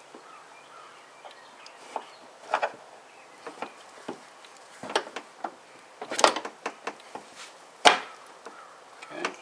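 Scattered clicks and knocks of a lift gate gas strut being fitted onto its ball-stud mounts, with two louder knocks in the second half.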